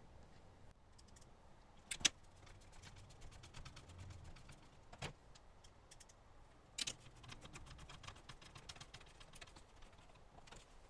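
Light clicking and tapping of small hard objects being handled, with sharper knocks about two, five and seven seconds in, the first the loudest.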